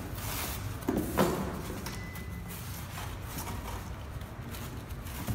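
Cardboard speaker carton and foam packing inserts being handled: flaps pushed back and foam blocks lifted out, with scraping and rustling and a couple of short knocks about a second in.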